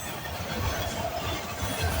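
Freight cars of a CSX intermodal and autorack train rolling past, their wheels running on the rails with a steady rumble and rail noise.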